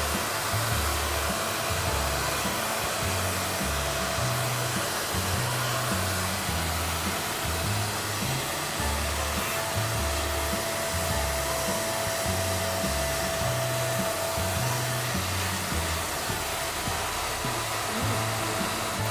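Pet grooming vacuum's motor running steadily with an airy rushing noise and a faint high whine, under background music with a bass line.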